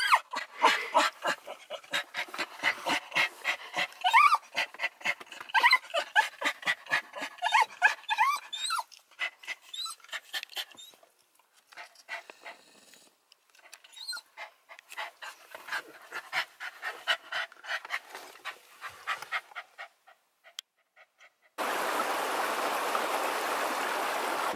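A brown cockapoo panting fast with short, high, rising whines, densest for the first nine seconds or so, then sparser and quieter. Near the end it gives way suddenly to steady wind noise on the microphone.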